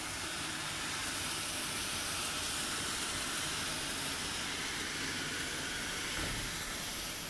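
Christie projector's cooling fans running with a steady rushing hiss, heard at its acoustic enclosure. A brief low thump about six seconds in.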